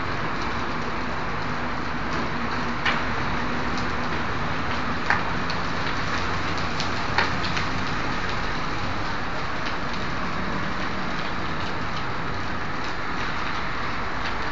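Large fire at a truck depot burning: a steady rushing noise with sharp pops, three louder ones about two seconds apart in the first half, over a low steady hum.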